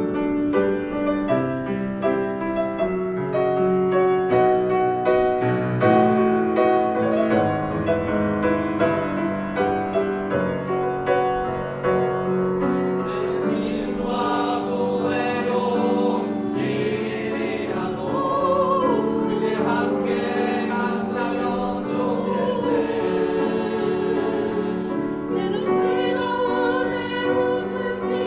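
Choir singing with piano accompaniment; the voices grow fuller about halfway through.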